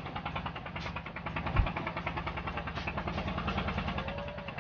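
Fishing boat's engine running steadily with an even, rapid pulse, and a single low thump about a second and a half in.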